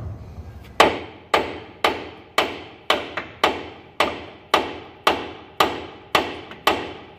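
Steady hammer blows on steel, about two a second, each with a short ring, starting about a second in: hammering to drive a rusted-in part out of a tractor's transmission.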